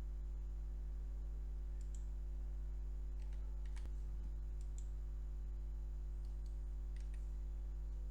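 Scattered computer clicks, a few at a time and several seconds apart, over a steady low hum.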